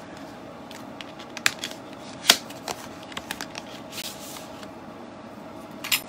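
Paper and cardstock being handled on a craft table: soft rustling with a few sharp clicks, the loudest a little past two seconds in.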